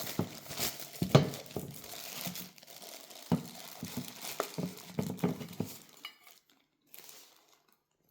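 Packaging crinkling and rustling as it is handled, with a series of short knocks, dying away about six seconds in.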